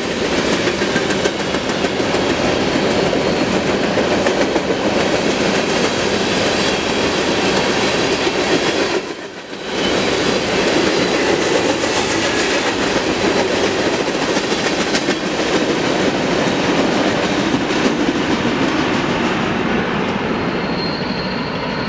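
Freight train of empty covered hopper cars rolling past, steel wheels clattering over rail joints in a continuous rumble, with a short dip about nine seconds in.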